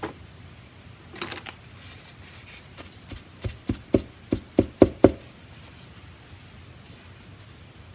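A run of about seven sharp, light knocks on a hard surface, about four a second, each louder than the last. A few softer taps come about a second earlier.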